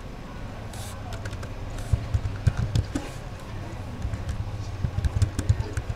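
Typing on a computer keyboard: irregular runs of key clicks with dull thuds, in two flurries with a short lull between them, over a steady low hum.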